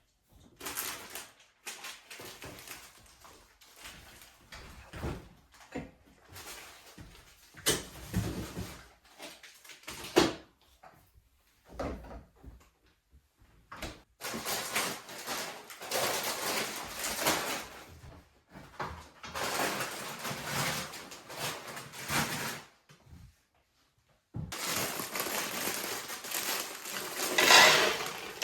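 Irregular rustling, knocks and handling noises in a small room, in uneven bursts with short pauses; the busiest, loudest stretches come in the second half.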